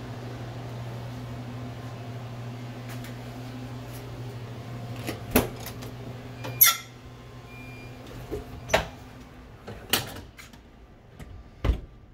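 Steady low hum of machinery in a tiled room, then a door's knob and latch clicking as it is pushed open about six seconds in. A few more sharp knocks and clicks follow, the last one a heavy thud near the end.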